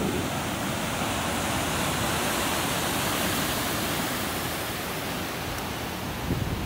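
Ocean surf washing up onto a beach, a steady rushing hiss of breaking waves and foam. Near the end, wind starts buffeting the microphone with low rumbles.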